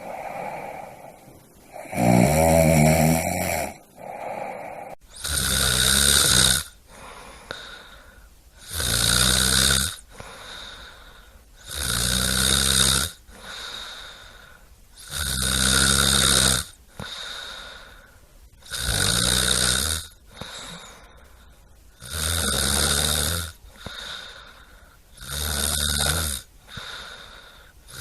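A person snoring in a steady rhythm: eight loud snores, each lasting over a second, come about every three and a half seconds, with quieter breathing between them.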